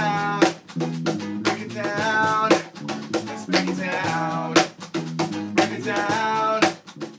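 Small acoustic band playing: a man sings long held notes over electric bass, acoustic guitar and strong percussion hits about once a second. The music stops at the very end.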